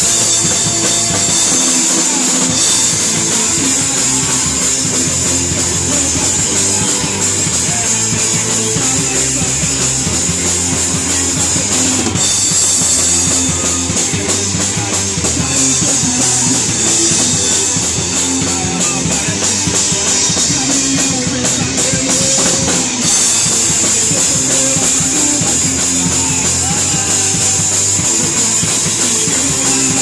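Hardcore punk band playing live: drum kit with a constant crash-cymbal wash and electric guitar, loud and dense without a break.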